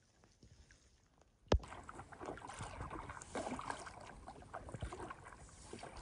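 Near silence, then a single sharp click about a second and a half in, followed by water splashing and lapping around an inflatable packraft as it is paddled, with many small irregular drips and splashes.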